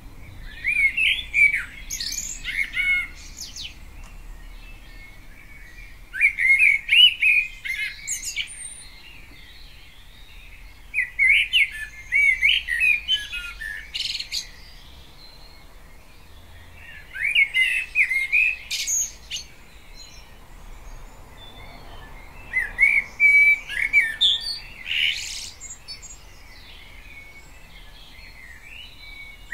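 A common blackbird singing: five phrases about five seconds apart, each a low fluty warble that ends in high, thin squeaky notes.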